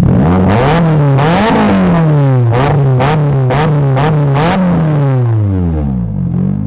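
Nissan Silvia S14's SR20 four-cylinder engine revved in a series of quick blips, then settling back to idle near the end. It still misfires a little on the overrun.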